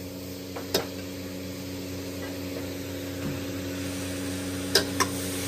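Greens sizzling in a hot wok, a steady hiss over a low hum, with a few sharp clinks of the metal ladle against the wok: one about a second in and two close together near the end.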